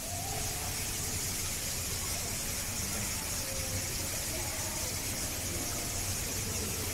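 Steady background hiss with a low hum underneath and faint distant voices; no distinct chewing or bamboo-cracking sounds stand out.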